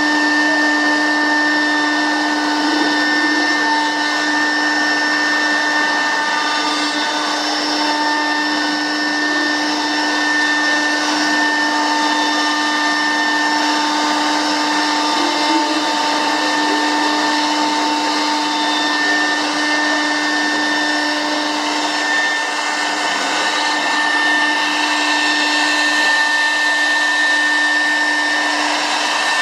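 CNC router milling solid pine, its spindle running at a steady whine over a continuous rushing noise.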